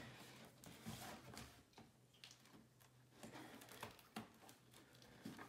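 Faint scraping and clicking of scissors cutting through packing tape on a cardboard box, in short irregular strokes.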